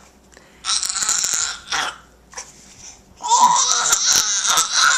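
A baby making raspy, breathy "driving noises" with his mouth and voice: two short bursts early, then a longer one starting about three seconds in.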